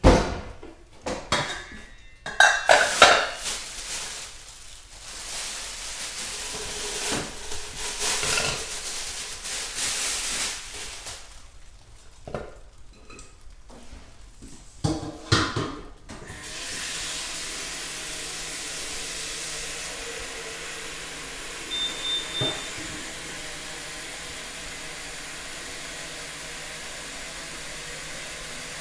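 Kitchenware clattering: pots, pans and cutlery knocked and set down in irregular bursts for about the first half. Then a steady hiss with a low hum takes over, with a brief high beep partway through.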